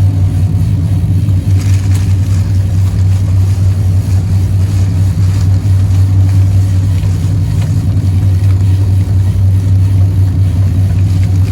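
Motorboat engine running at a steady, even pitch: a loud, continuous low hum.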